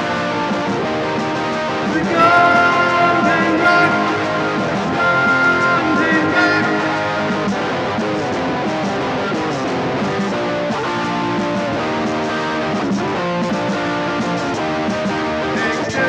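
Solo guitar playing, strummed and picked chords, with a louder run of held high notes from about two seconds in to about seven.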